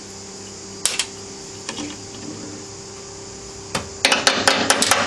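Hammer blows on the VW Superbug engine's crankcase at its knock points, to break apart the case halves, which are thought to be glued. There is a single sharp strike about a second in and another near four seconds, then a quick run of about seven strikes.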